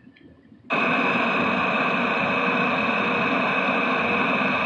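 Steady rushing noise of an electric fan running on high, with a faint steady hum in it, cutting in suddenly about a second in.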